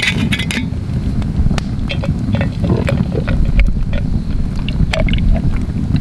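Ice cubes clinking in a glass near the start, then scattered small clicks, all over a steady low rumble.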